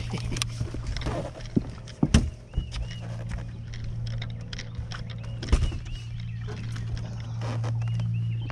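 Knocks and thumps on a bass boat's deck while a striped bass is landed, the loudest about two seconds in and again past the middle, over a steady low hum and short repeated high chirps.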